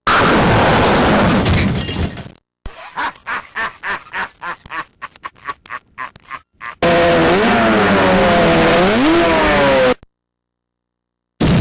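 A string of dubbed sound effects with abrupt cuts between them. A loud crashing noise lasts about two seconds, then comes a run of rapid separate clicks and knocks, then a loud wavering pitched tone for about three seconds. Another crash starts near the end.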